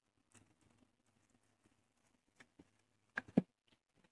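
Faint rustling of a bubble-wrapped package being lifted out of a cardboard box, with scattered small clicks and two sharper knocks a little after three seconds in.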